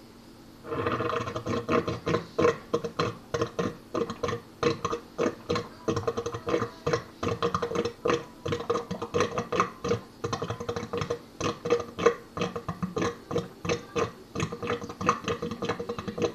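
Stainless steel sink drain gurgling and glugging as the last of the water runs down and air is drawn into the pipe. It starts suddenly about a second in and goes on in irregular rapid glugs, about three or four a second.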